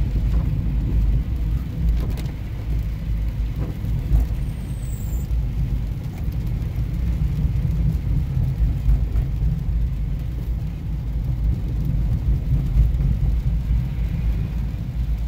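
Car driving on a wet road, heard from inside the cabin: a steady low rumble of engine and tyres, with a few faint knocks.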